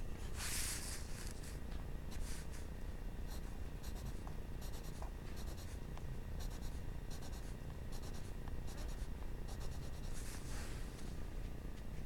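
Graphite pencil shading on paper: scratchy strokes, one long one near the start, then a run of short, even strokes about two a second, and another long one near the end.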